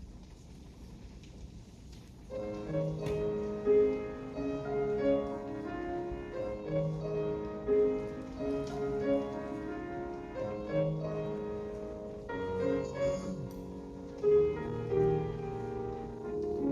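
Piano begins playing about two seconds in, a flowing accompaniment with repeated low bass notes under a melody: the instrumental introduction to a choir anthem. Before it, only faint room noise.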